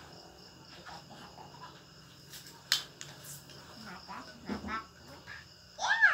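Small plastic toys clicking and knocking as a child handles them on a wooden floor, with one sharp click about two and a half seconds in; a child makes brief vocal sounds near the end. Crickets chirp steadily in the background.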